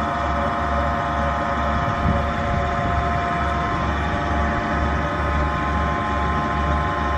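Vertical 30 hp electric motor driving a tubewell turbine pump, running with a steady hum and whine made of several steady tones over a low, evenly pulsing throb.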